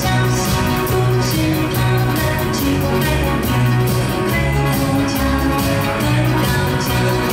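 Female singer with a live pop-rock band: electric guitar, keyboards, bass and drums over a steady beat.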